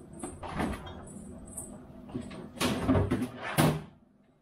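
Refrigerator door opened and a bottle taken out, with knocks and clatters from inside the fridge, loudest about three seconds in.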